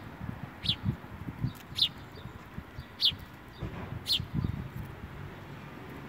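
Sparrows chirping: short, high, falling cheeps, one about every second.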